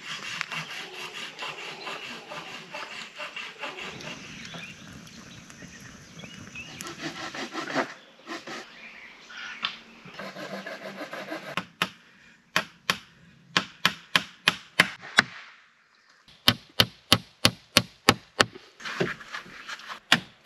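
Wood being sawn by hand with steady rasping strokes for several seconds. After that comes a run of sharp knocks on wood, about three or four a second near the end.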